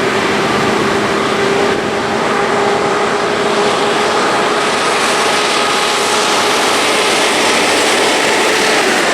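Heavy-haulage truck diesel engines working hard up a hill: a loud, steady drone with a constant engine note over heavy road noise, growing a little brighter partway through.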